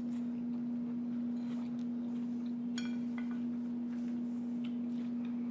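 A steady low hum held at one pitch, with a brief clink of a utensil on a dish about three seconds in.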